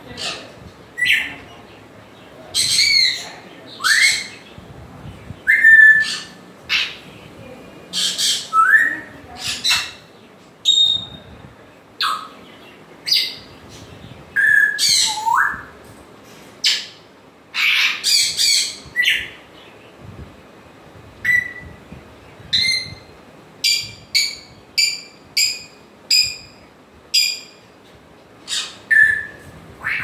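African grey parrot calling in a rapid string of short whistles and harsh squawks, several whistles sliding upward in pitch. Near the end it gives a run of evenly spaced short whistles, about two a second.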